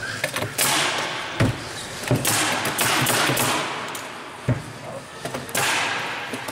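Spotnail X1C1008 pneumatic cabinet assembly tool driving small corrugated fasteners into a cabinet joint: three sharp knocks, with bursts of hissing air lasting a second or more between them.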